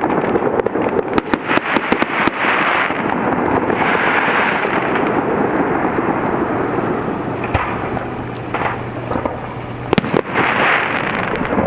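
Aerial fireworks display: shells bursting in quick succession with sharp bangs and crackling over a continuous rumble, with a dense cluster of bangs near the end.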